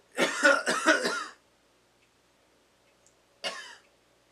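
A man coughing into his fist: a quick run of several coughs lasting about a second, then a single cough a couple of seconds later.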